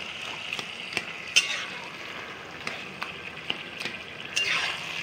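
Taro leaves and fried hilsa fish heads sizzling in a pan while a metal spatula stirs and breaks up the fish heads. A few sharp taps and scrapes of the spatula on the pan stand out over the steady sizzle.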